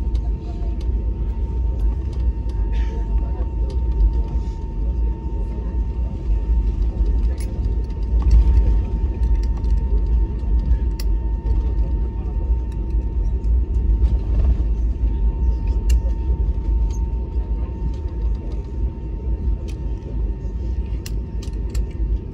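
Cabin noise inside an Airbus A320neo taxiing after landing: a steady low rumble from its CFM LEAP-1A engines at idle and the wheels rolling on the pavement, with a faint steady whine and occasional light clicks.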